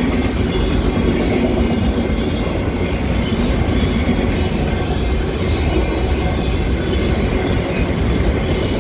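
Empty autorack freight cars rolling past at track level: a steady, loud rumble and rattle of steel wheels on the rails.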